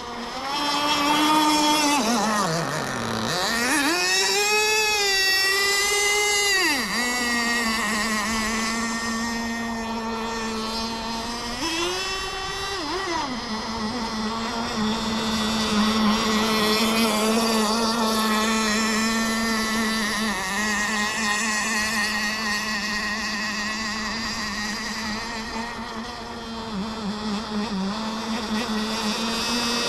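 Kyosho Jetstream 1000 RC boat's GT32 marine nitro two-stroke engine running on the water. It revs up, drops off and revs up again in the first seven seconds, then runs at a steady pitch, with one brief burst of throttle about twelve seconds in.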